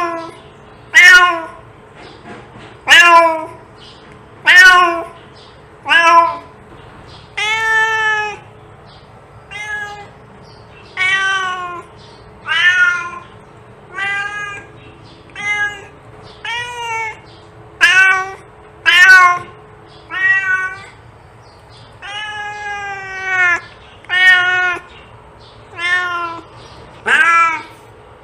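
A domestic cat meowing over and over, about twenty loud meows one every second or two, each a short pitched call that rises and falls.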